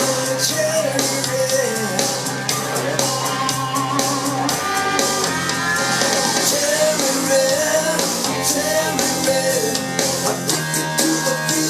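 Rock song with a singer, guitar and drums, played from a CD through a Klein & Hummel Telewatt VS 56 tube amplifier and DIY loudspeakers.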